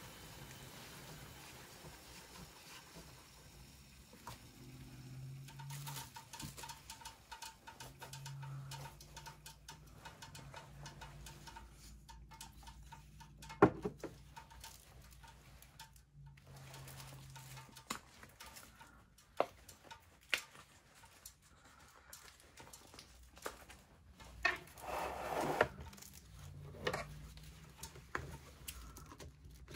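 Quiet tabletop handling sounds: a sharp knock about halfway through as a glass of iced water is set down, then scattered clicks and taps, and a short crinkle of a plastic food wrapper near the end, over a faint low hum.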